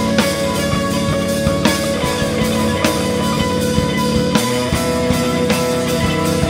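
Instrumental progressive rock played by a three-piece band: guitar, bass guitar and drum kit, with held guitar notes over a steady drum beat.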